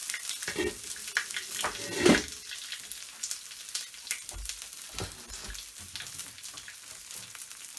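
A thin rice-flour bánh xèo crepe frying in an oiled wok: a steady crackling sizzle with many small pops. A louder knock comes about two seconds in.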